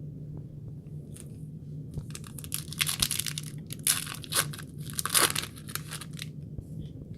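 A foil trading-card pack being torn open and its wrapper crinkled, in a few bursts of crackling from about two and a half to six seconds in.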